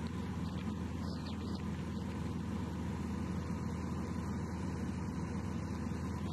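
Steady drone of a light aircraft's piston engine and propeller in flight, heard from inside the cockpit.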